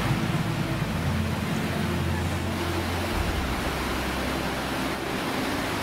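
Swollen, fast-flowing floodwater rushing: a steady noise with a low rumble underneath.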